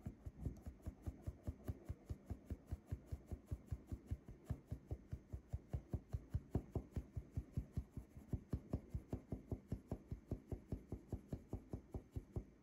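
Flour being sifted through a fine metal mesh sieve, the sieve tapped or shaken in a steady rhythm of soft knocks, about five a second.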